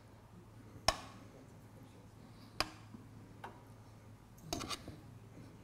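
Metal kitchen tongs clicking and tapping against a ceramic plate while fried plantain pieces are set down: a few separate sharp clicks, with a short cluster of them near the end.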